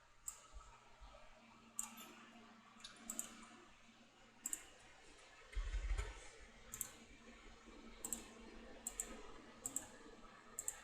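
Computer mouse clicking, about a dozen sharp clicks at uneven intervals, with one low bump a little past the middle.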